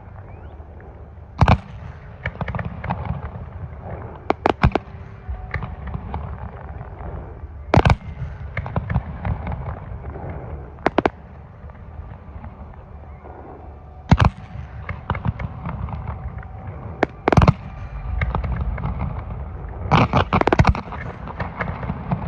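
Fireworks display: loud aerial shell bursts every few seconds, each followed by crackling, with a rapid cluster of bangs near the end.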